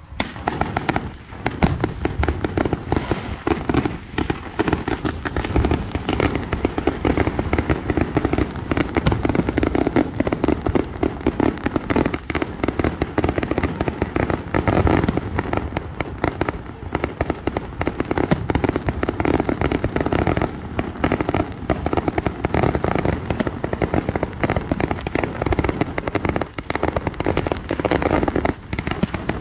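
Fireworks display: aerial shells launching and bursting in a rapid, nearly unbroken run of bangs.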